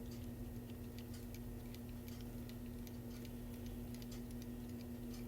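Faint, irregular small metal clicks and ticks of a Phillips screwdriver turning out the small screw that holds an Abus 72/40 padlock together. A steady low hum runs underneath.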